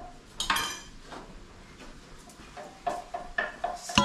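Metal cooking pots and utensils clinking and clattering at a stove. There is a clatter about half a second in, several light ringing clinks around the third second, and a sharp, ringing clank near the end, the loudest sound.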